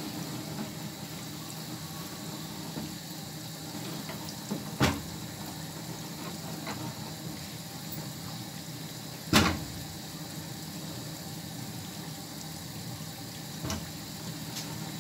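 Diced potatoes frying in a pan of hot oil: a steady bubbling sizzle. A few sharp knocks cut in, the loudest about nine seconds in.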